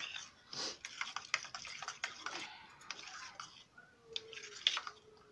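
A spoon stirring curd in a steel bowl, with irregular light clicks and taps of the spoon against the metal as the raita is mixed.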